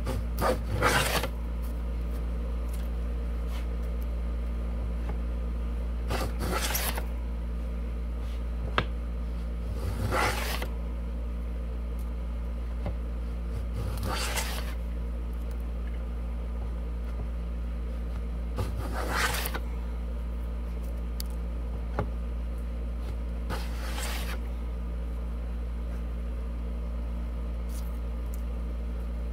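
Shop-made wooden grooving plane cutting a groove along a board: about six short rasping strokes, four to five seconds apart, each peeling off a long shaving. A steady low hum runs underneath.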